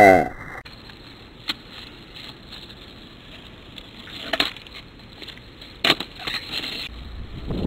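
Skateboard wheels rolling on asphalt with a steady hiss, and the board clacking down sharply a few times as freestyle tricks land and the board is flipped. It opens with a short sound that falls in pitch.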